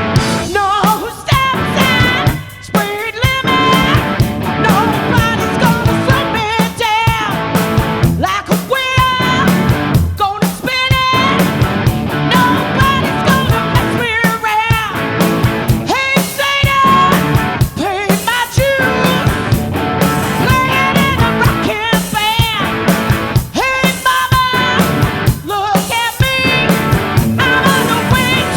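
Rock band playing live: drums, bass and electric guitar, with a lead line of bending, wavering notes over a steady beat.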